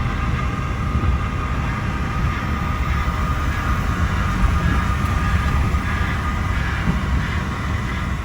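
Pickup truck driving down a dirt road: steady engine drone with tyre and road noise and a faint steady whine.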